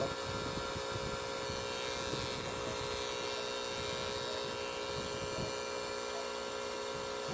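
Cartridge tattoo machine running with a steady buzz as the needle works into skin.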